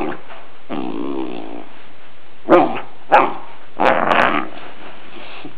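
Bullmastiff puppy moaning and groaning: a wavering groan about a second in, two short barks around the middle, then a rougher grumble.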